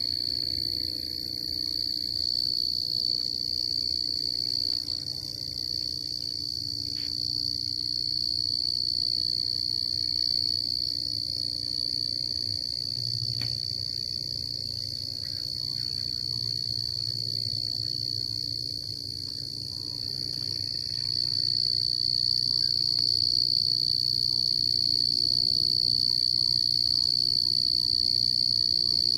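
Night insects chirring in one steady, high-pitched chorus that does not let up, with a faint low hum beneath.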